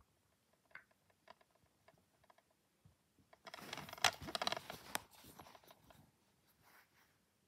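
A plastic DVD case is handled and turned over in the hand. Light clicks and taps come first. About three and a half seconds in there is a burst of scraping and rustling with a sharp click, which fades out by about six seconds.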